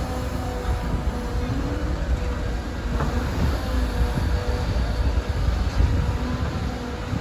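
Cat 325 hydraulic excavator's diesel engine and hydraulics working as it digs: a steady low rumble with a steady whine over it, and a single knock about three seconds in.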